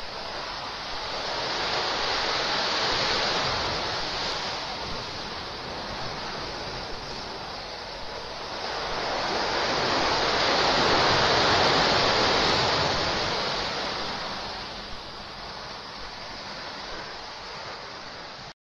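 Ocean surf breaking and washing over a rocky shore, a steady rush that swells twice, about three seconds in and again more loudly around eleven seconds in, as larger waves come in.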